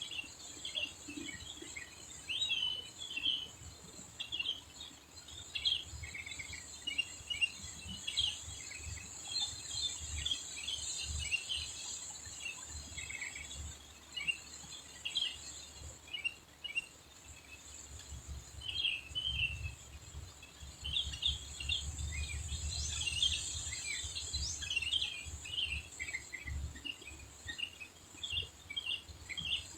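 Small birds calling with quick, short chirps, over and over. Behind them run a steady high-pitched insect drone and a low, uneven rumbling noise.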